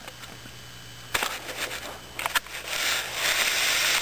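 Handling noise from a camera being moved and lowered to the carpet: a knock about a second in, a couple of sharp clicks, then a loud rustling hiss from about two and a half seconds on.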